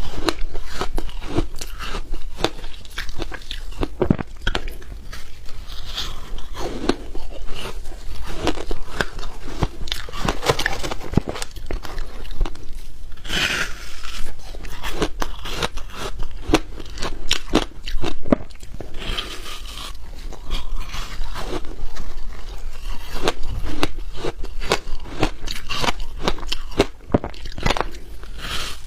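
Shaved ice being bitten and chewed: a steady stream of irregular crisp crunches, with a short hiss about halfway through.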